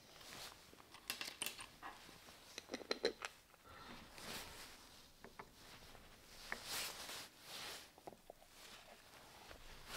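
Gloved hands handling cast-iron electrical boxes on a metal workbench: scattered light clicks and knocks of metal parts, loudest about a second in and around three seconds in, with soft rubbing and scraping in between.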